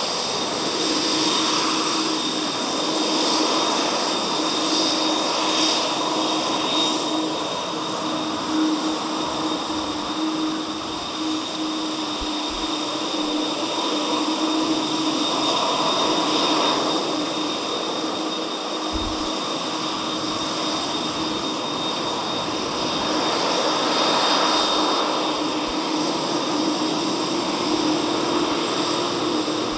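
Jet engines of a FedEx three-engined wide-body freighter running at taxi power: a steady whine over a low hum that swells a little now and then as the jet rolls and turns.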